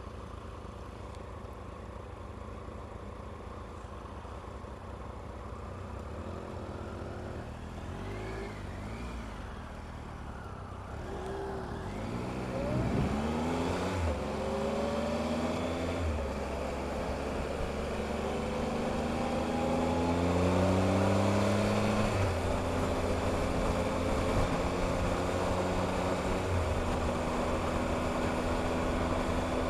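Motorcycle engine pulling hard through the gears, its pitch climbing and then dropping back at each upshift several times from about twelve seconds in, with wind and road noise building as speed rises.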